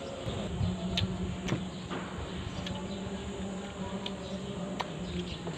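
Close-up eating sounds of ripe mango being sucked and bitten off the peel, with several sharp wet smacks and clicks, over a steady low hum.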